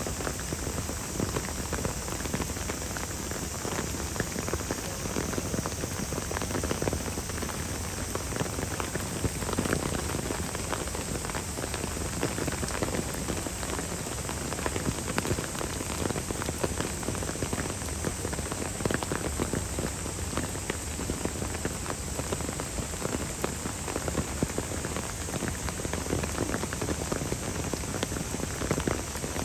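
Steady rain falling, a continuous hiss thick with the small ticks of individual drops.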